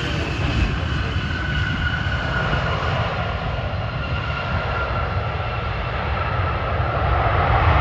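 Jet airliner engines whining over a low rumble as the plane passes, the whine tones sliding slowly down in pitch. The sound grows louder near the end.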